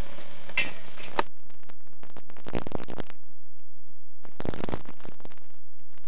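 The tail of a music track cuts off with a click about a second in. Two rough bursts of hissy noise follow, each lasting about a second, with a gap between them.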